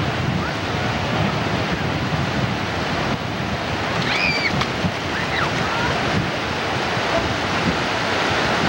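Ocean surf breaking and washing into the shallows, a steady rushing noise with wind buffeting the microphone. A short high-pitched call rises and falls about four seconds in.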